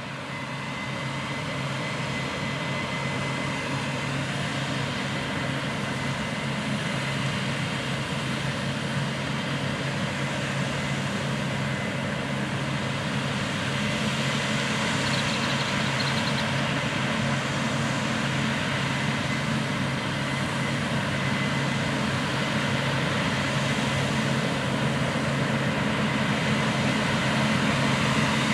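Big Case IH farm machinery working a wheat field: heavy diesel engines running steadily with a constant high whine over the engine hum, fading in at the start.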